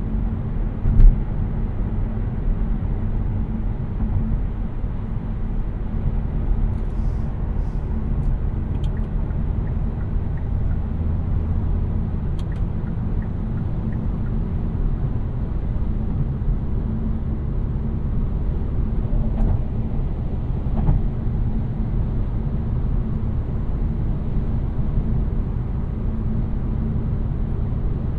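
Steady low road and tyre rumble inside the cabin of a 2018 Kia Niro 1.6 GDi Hybrid being driven, with a faint steady hum. A single thump about a second in.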